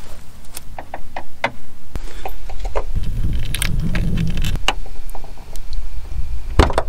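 Small flathead screwdriver prying at the socket clip on the upper end of a hood gas strut: a scatter of small, sharp metal-and-plastic clicks and taps, with a low rumble of handling a little past the middle.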